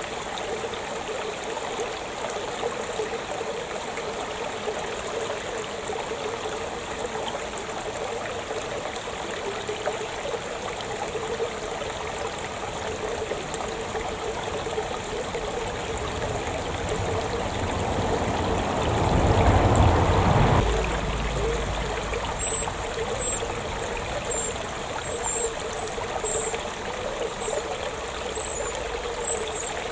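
Small stream trickling and running steadily. About two-thirds through, a brief swell of louder noise with a low rumble, and from then on a series of short, high-pitched bird calls.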